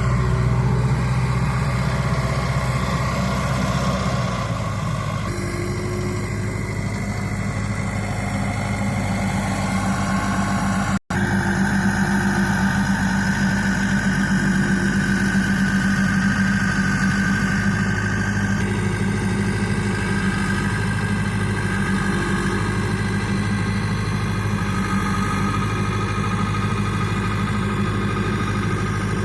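Pickup truck engine running steadily, a low even hum, with a momentary cut-out about eleven seconds in.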